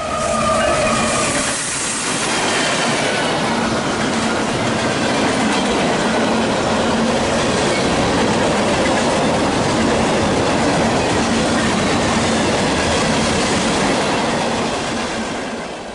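HO-scale model freight train rolling along the layout track, a steady, continuous rolling noise of its wheels on the rails.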